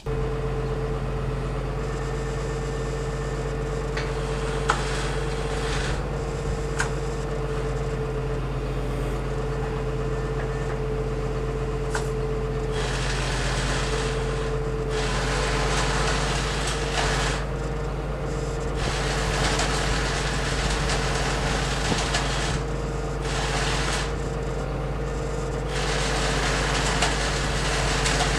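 John Deere 544 wheel loader's diesel engine idling steadily with a constant hum and a steady tone, overlaid by stretches of hiss that come and go and a few light clicks.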